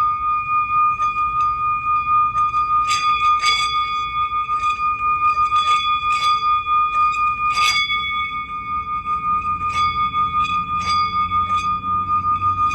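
Sound-healing music: a steady bell-like ringing tone is held throughout, with short chime strikes sounding every half second to second over it.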